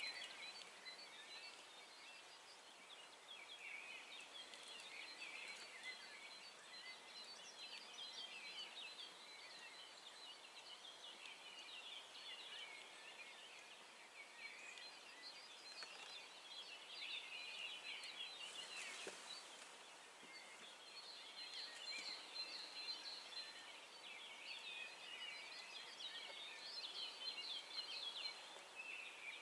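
Faint chorus of small birds singing, many short overlapping chirps and trills, over a light hiss.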